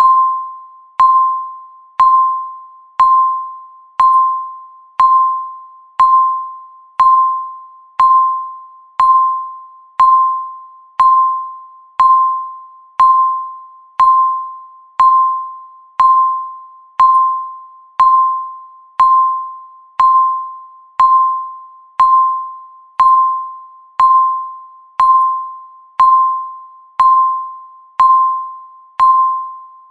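Countdown timer's electronic tick sound, one short pitched ping every second at an even rate, each struck sharply and fading away before the next, marking off the seconds.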